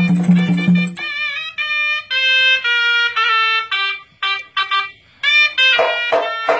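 Serunai, a Malay double-reed shawm, playing a solo melody of held notes with ornamented slides. The laced gendang barrel drums stop about a second in and come back in near the end, accompanying the serunai.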